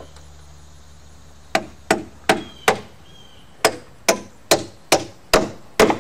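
Hammer driving nails into wooden roof-truss framing: four blows, a pause of about a second, then six more, a few of them ringing briefly.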